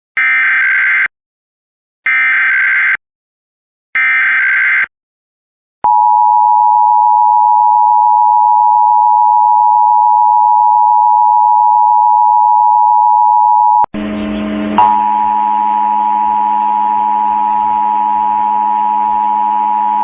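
Emergency Alert System test: three one-second bursts of SAME digital header, each a screeching data warble, then the EAS attention signal, a steady two-tone 853/960 Hz beep held for about eight seconds. About 14 seconds in, the audio switches to a noisier feed carrying another steady alert tone over a low hum.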